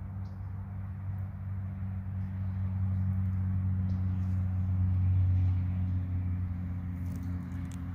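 A machine running with a steady low hum that grows a little louder about midway, then eases off. A few faint clicks come near the end.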